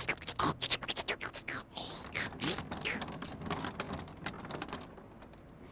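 A rapid, irregular run of crisp crackling clicks, densest over the first two seconds and thinning out after.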